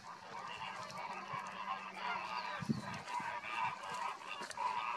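A flock of greater flamingos calling: a continuous, dense chorus of goose-like honking and gabbling from many birds at once.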